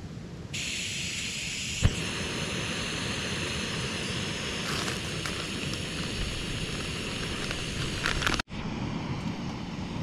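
Jetboil canister stove lit: gas hissing from the opened valve, one sharp click of the push-button igniter about two seconds in, then the burner running with a steady hiss. The sound breaks off abruptly near the end.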